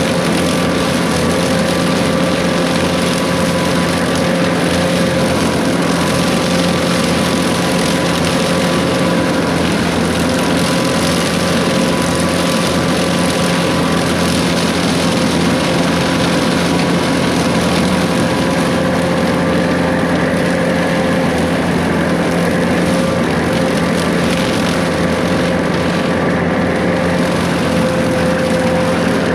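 Case 140 excavator's diesel engine running steadily while brush cutting, a constant heavy drone with steady whining tones. A higher whine rises slightly near the end.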